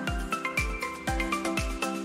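Background music: a steady low kick drum about twice a second under short, bright melody notes.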